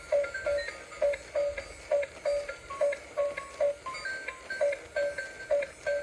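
Background music: a light, even beat of about three pulses a second under a simple melody of short notes.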